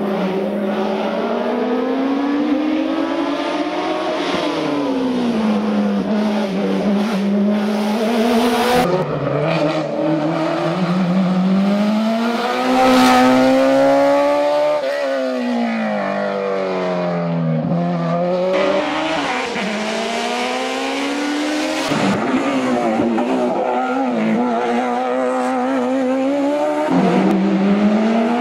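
Suzuki Hayabusa inline-four motorcycle engine in a Fiat 500 race car, revving hard and dropping again and again as the car accelerates, shifts and brakes through a slalom. Its pitch climbs and falls every few seconds.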